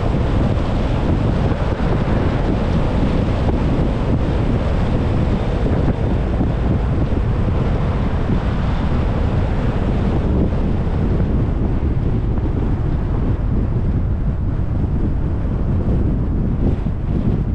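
Steady wind rumble buffeting the microphone of a GoPro on a moving car, with road noise underneath. The higher hiss thins a little about ten seconds in.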